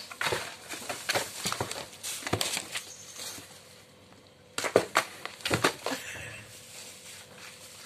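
A cat scrambling and pawing inside a cardboard box: irregular scratching, rustling and knocking of the cardboard. It goes quieter about four seconds in, then a few sharp knocks follow as the cat dives back into the box.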